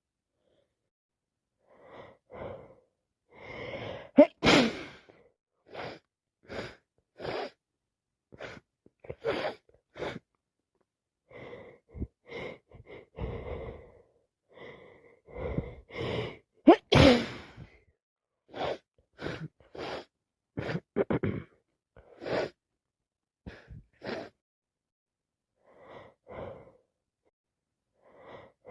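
A woman sneezing over and over in a long sneezing fit, with many short sneezes and sharp breaths in between. The two loudest sneezes come about four seconds in and about seventeen seconds in. The fit comes from sinusitis and a heavy cold.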